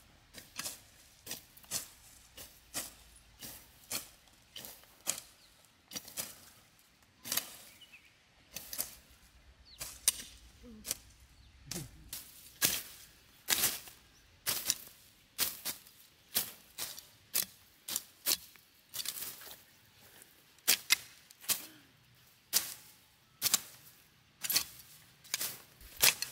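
Machetes slashing through grass and weeds, a steady run of short, sharp swishing cuts about one or two a second, as two people hack the growth down by hand.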